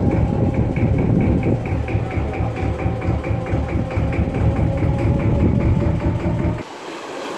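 Dhoni's inboard engine running steadily, a low engine note with a fast, even ticking of about five beats a second. About six and a half seconds in it cuts off suddenly, giving way to a soft hiss of wind and water.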